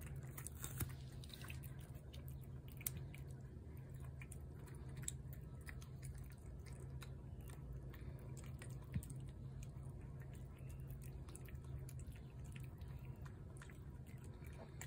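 Cat chewing chunks of wet food off a plate: faint, irregular small clicks of chewing, over a low steady hum.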